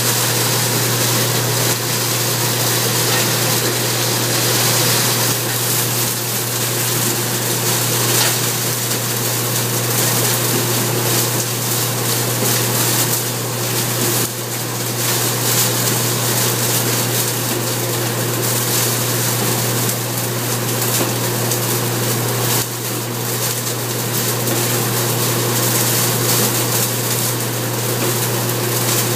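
A straw-handling machine running steadily, its rotating drum churning loose straw behind a guard. The sound is a constant low hum under a dense rushing noise, with two brief dips in level partway through.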